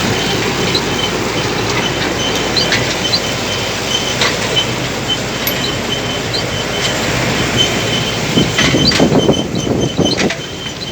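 Machinery running with a steady noise and a recurring high-pitched squeak. Louder, rougher knocking comes in near the end.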